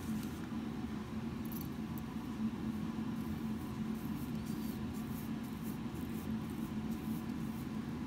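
Steady low hum of room tone. In the first couple of seconds there are a few faint scratchy ticks from fingers handling fly-tying dubbing at the vise.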